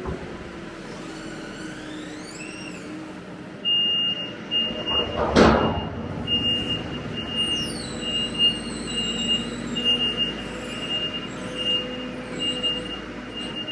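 Harvest machinery running steadily, with an electronic warning beep that starts about four seconds in and repeats about twice a second, and a loud rushing thump about five seconds in.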